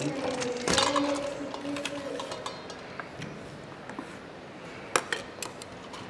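A stainless steel mixing bowl clinks against the steel counter about a second in and rings on with a steady metallic tone for about a second and a half. A few light clicks follow near the end.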